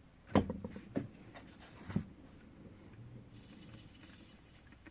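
A few sharp clicks and taps with the gaps between them widening, then a soft rustle about three seconds in.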